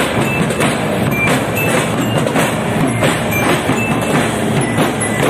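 Street drum band beating marching drums, red-shelled drums with white heads and a bass drum, in a dense steady rhythm. Short high ringing notes sound over the drumming.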